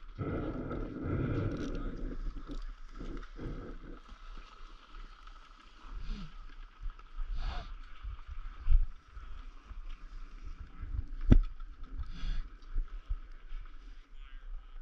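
Skis sliding and scraping over packed snow on a downhill run, with wind on the microphone. Two sharp knocks stand out in the second half, about two and a half seconds apart.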